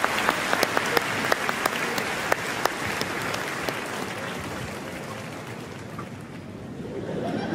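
Audience applauding. The clapping is heavy at first, with sharp single claps standing out, then thins and dies down over several seconds.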